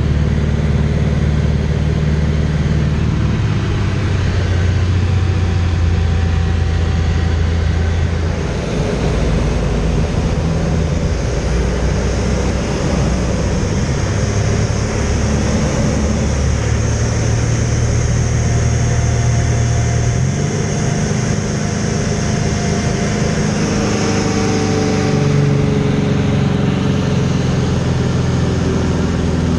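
Piston engine and propeller of an aerobatic biplane, heard from the open cockpit over the rush of wind, running loud and steady. The engine note shifts up and down several times as power changes through the manoeuvres.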